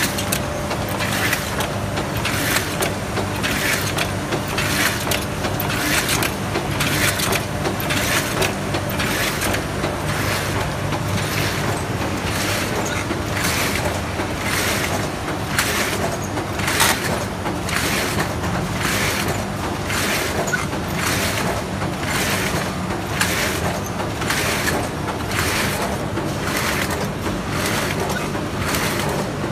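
A 1971 Bobst SP 1080 E platen die-cutting press with a stripping section running in production. It cycles at about one stroke a second as each sheet is cut, over a steady motor hum.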